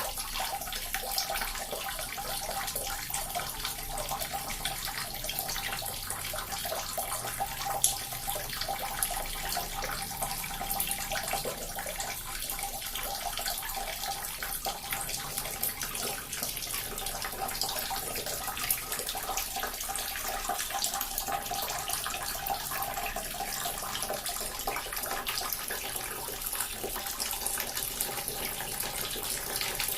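A small water fountain running steadily, water trickling and splashing into its basin.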